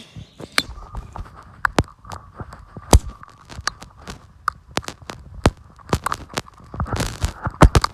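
An old Samsung flip phone being smashed apart, with an irregular series of sharp knocks and cracks of blows on it. The loudest blows come about three seconds in and near the end.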